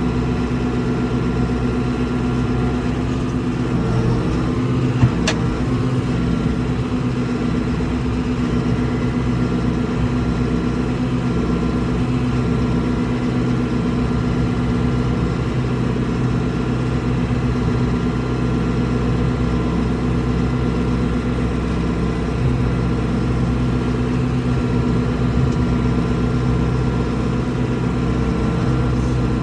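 A vehicle engine running at a steady speed, with a single sharp click about five seconds in.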